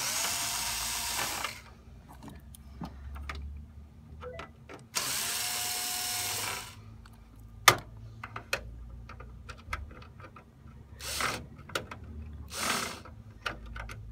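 Cordless drill-driver running in two steady bursts of about a second and a half, one at the start and one about five seconds in, backing Phillips screws out of a copier's plastic side cover. Between them come small clicks and handling knocks, and near the end two short noisy bursts.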